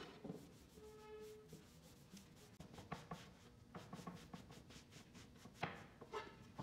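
Faint wiping strokes of a cloth pad rubbing finish into a wooden cutting board, a few louder strokes near the end. Faint background music in the first second or so.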